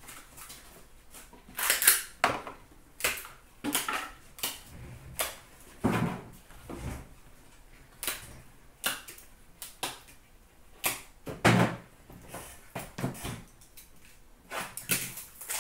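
Irregular clicks, taps and short rustles of trading-card packaging and plastic card holders being handled on a glass counter, with a couple of duller knocks.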